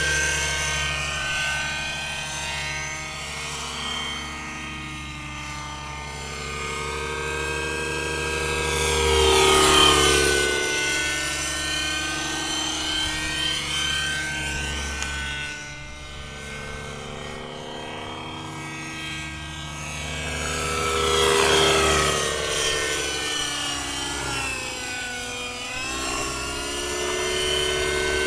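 Hirobo Shuttle Sceadu radio-controlled helicopter's small nitro glow engine and rotors running steadily in flight. It grows louder as it passes close, about ten seconds in and again about twenty-one seconds in, and the engine pitch bends as it goes by.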